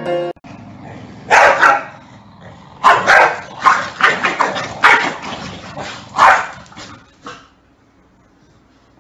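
Corgi barking repeatedly, sharp barks in short volleys, stopping about seven seconds in.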